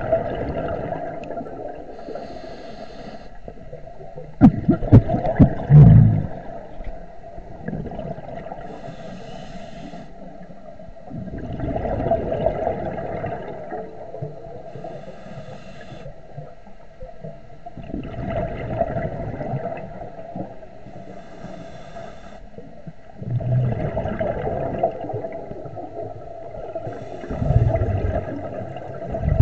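Scuba diver breathing through a regulator underwater: a hiss on each inhale, then a loud rush of exhaled bubbles, repeating about every six seconds over a steady hum.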